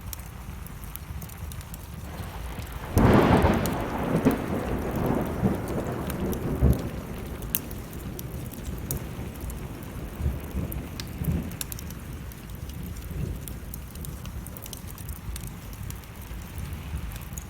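A thunderclap about three seconds in, rumbling away over the next few seconds, over steady rain. Sharp pops of a wood fire crackling run throughout.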